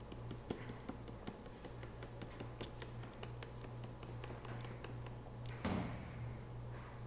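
Someone chugging water from an upturned plastic Propel bottle: gulping as the thin plastic bottle crackles in scattered small clicks, with one louder noise about five and a half seconds in. A steady low hum runs underneath.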